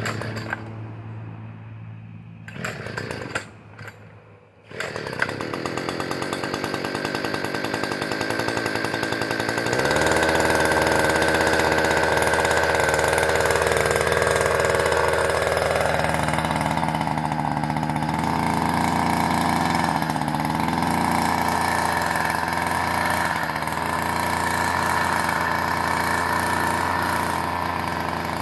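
Blue Max 42.7cc two-stroke string trimmer engine being pull-started. After a few short pulls in the first seconds it catches about five seconds in and keeps running. It gets louder about ten seconds in and shifts pitch a few seconds later, then runs steadily.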